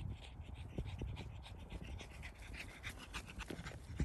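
A Pekingese dog panting quickly and evenly, close by.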